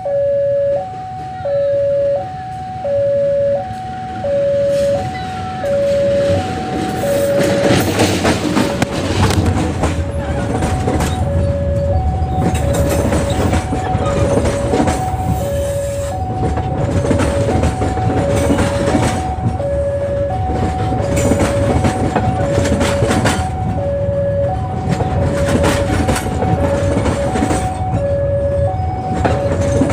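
A level-crossing alarm alternating between two tones about once a second, joined about seven seconds in by a train passing slowly and close by: a heavy rumble with wheels clacking over the rail joints.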